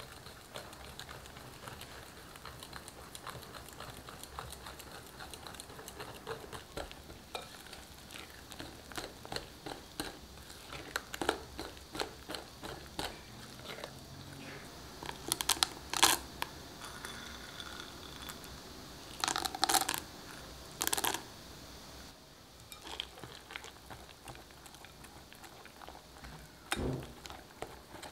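A hand wire whisk stirring flour into thick banana batter in a glass mixing bowl: rapid light clicks and scrapes of the wires against the glass. There are a few louder clattering bursts past the middle and a dull thump near the end.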